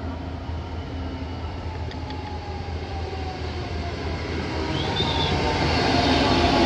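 A Class 66 diesel-electric locomotive approaches and passes close by. Its two-stroke V12 diesel engine runs steadily and grows louder as it nears, joined by wheel and rail noise.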